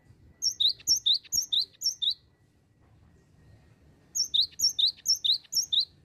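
Cinereous tit (gelatik batu) singing: a rapid run of repeated high-low two-note phrases, about two phrases a second, in two bursts of roughly two seconds each.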